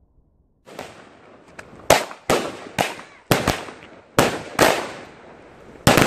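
Fireworks from a multi-shot aerial cake firing. A hiss starts just under a second in, followed by a rapid string of about eight sharp bangs over the next four seconds. The last bang comes near the end.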